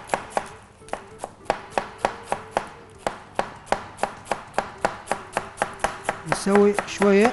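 Chef's knife chopping lettuce on a cutting board, in quick, steady strokes about three or four a second.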